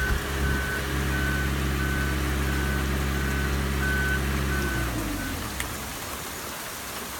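Marine travel lift's engine running with its warning alarm beeping steadily, about three beeps every two seconds. The engine cuts out a little under five seconds in and the beeping stops just after, leaving the hiss of falling rain.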